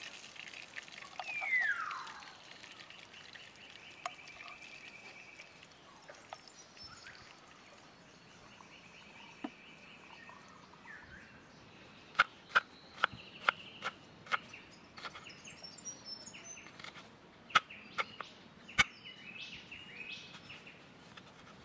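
Forest birds calling, with a loud falling whistled call about a second and a half in. From about halfway, a run of sharp knocks, about two a second in two bursts: a large knife chopping onion on a wooden cutting board.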